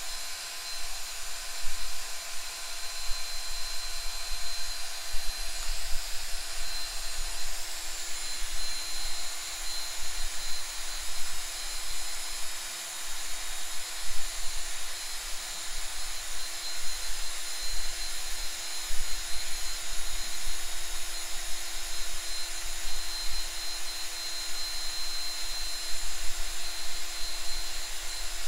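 Handheld drill running steadily with a constant whine as it stirs epoxy resin in a plastic cup.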